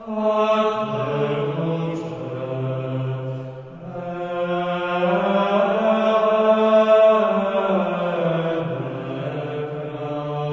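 Background music of slow chant-like voices holding long notes, several at once, shifting to new pitches every few seconds.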